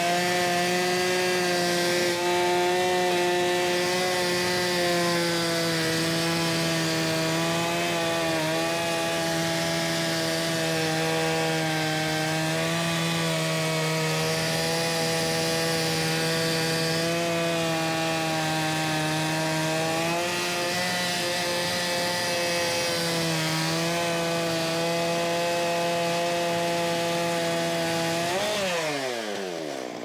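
Chainsaw on a Logosol chainsaw mill running at a steady high engine speed under load, cutting lengthwise through a log. About a second and a half before the end the throttle is released and the engine note falls quickly.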